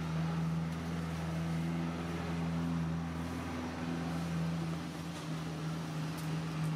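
A steady low motor hum, like an engine running at a constant speed, with a few held tones that shift slightly in pitch.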